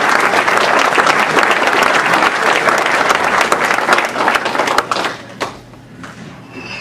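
Audience applauding, dying away about five seconds in with a few last scattered claps.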